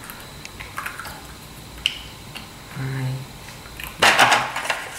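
Plastic molecular-model pieces clicking faintly as they are handled, then a loud clatter of plastic parts rattling in their plastic storage box as a hand rummages through them, starting about four seconds in. A brief hummed voice sound comes just before the clatter.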